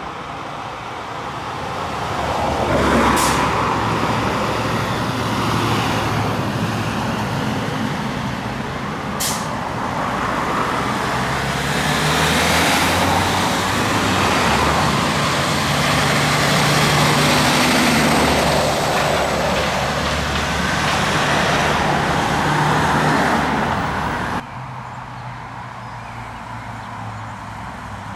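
Heavy diesel trucks running past close by, a Scania fire engine first, then a lorry, with steady engine and tyre noise. Two short, sharp air-brake hisses about three and nine seconds in. The level drops suddenly a few seconds before the end to a quieter street background.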